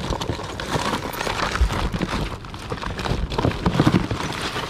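Hands rummaging through a plastic storage tote of small items: irregular clattering, rustling and knocks.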